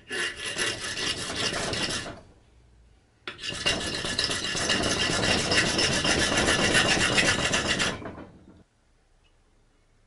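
Flat hand file rasping back and forth on the rusty steel of an old pocket knife held in a bench vise. One run of strokes lasts about two seconds, then after a short pause a longer run goes on for about five seconds before stopping.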